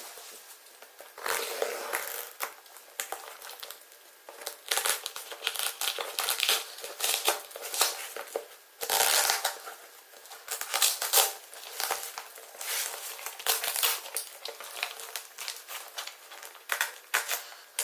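Packaging being handled by hand close to the microphone: irregular crinkling and crushing, in several louder spells.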